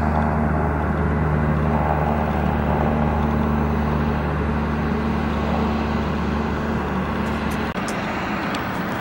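An engine running steadily, a deep hum with noise over it, which cuts off abruptly near the end.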